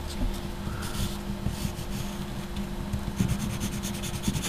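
Pencil scratching on paper in short back-and-forth shading strokes, which come quick and even near the end. A low steady hum runs underneath.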